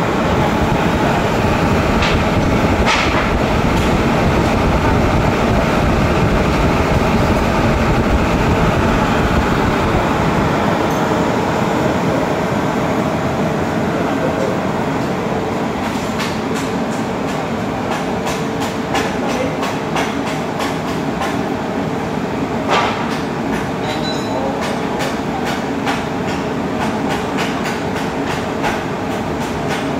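ADK 100 HP four-pole, foot-mounted (B3) electric motor running on its quality-control test: a loud, steady machine hum and cooling-fan rush with a steady tone. In the second half rapid clicks sound over it.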